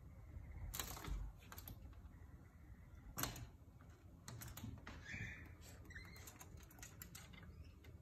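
Faint, irregular light taps and clicks, about a dozen of them, with one brief high chirp about five seconds in.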